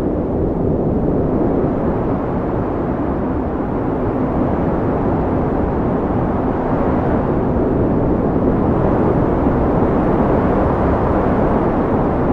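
Wind blowing steadily, a deep, rushing noise that swells and eases slowly with no gusts or breaks.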